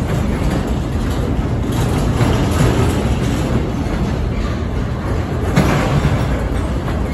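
Container well cars of a CSX intermodal freight train rolling past: a steady rumble of steel wheels on rail, with a couple of louder clanks.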